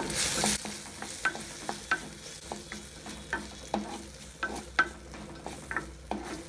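A spatula stirring and scraping chopped tomato, onion and green chilies frying in oil in a clay kadai, knocking against the pot about once or twice a second. A brief hiss of sizzling in the first half second, as the wet tomato meets the hot oil.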